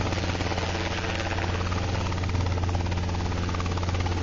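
Robinson R22 helicopter hovering just off the ground: the steady drone of its piston engine and the rapid, even chop of its main and tail rotors at hover power.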